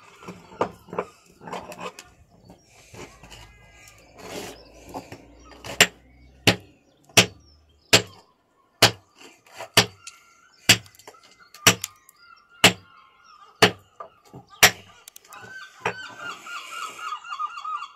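Hammer striking a fossil-bearing stone nodule on concrete to split it open: a few light knocks, then about eleven sharp blows roughly one a second.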